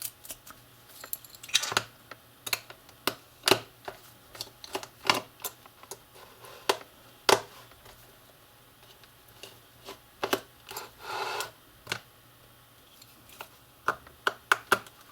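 Small sharp clicks and taps of a precision Torx screwdriver working the tiny screws out of a mobile phone's plastic and metal frame, irregular rather than rhythmic, with two short scrapes, one about a second and a half in and one about eleven seconds in.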